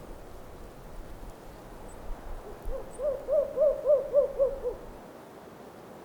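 An owl hooting: a quick run of about eight short, evenly spaced hoots, starting about two and a half seconds in, swelling and then fading, lasting about two seconds. Steady wind noise runs underneath.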